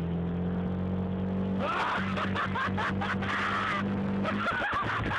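A jeep's engine revs, rising slightly and then holding a steady note while the jeep is stuck in mud, and drops away about four and a half seconds in. From about a third of the way through, people laugh and snicker.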